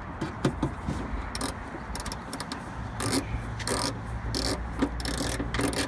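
A socket tool turning a nut onto a bolt on the tailgate's inner metal panel: short, irregular bursts of metallic clicking and scraping as the nut is tightened.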